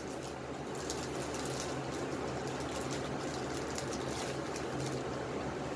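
Steady low hum and hiss of room background noise, with a few faint light rustles.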